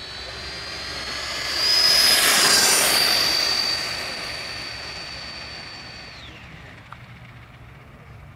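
Model jet turbine of an RC race truck running with a high, steady whine and a rush of exhaust that swells loudest about two seconds in as the truck passes, then fades as it drives away. After about six seconds the whine falls in pitch.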